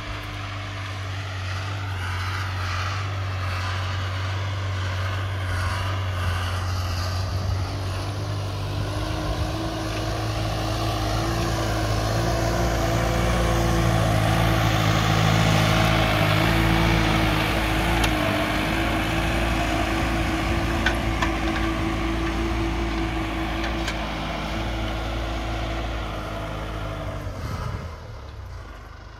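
New Holland TT4.75 tractor's diesel engine working steadily under load while pulling a tillage implement through the soil. It grows louder as the tractor passes close by about halfway through, then fades as it moves away near the end.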